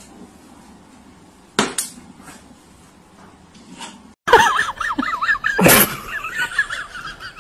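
Two light clicks, then after a cut a high, rapidly wavering cry, with a loud knock against a steel food bowl holding boiled eggs about a second and a half later.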